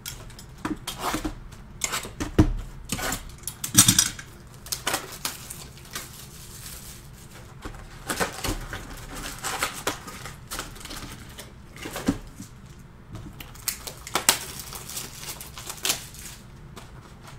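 Panini Prizm basketball retail boxes being opened and emptied by hand: cardboard and plastic-wrapped card packs rustling, crinkling and clicking in an irregular run of small sharp sounds.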